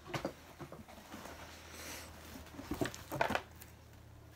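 Handling noises: scattered knocks and clicks, a brief rustle about two seconds in, and a cluster of louder knocks about three seconds in.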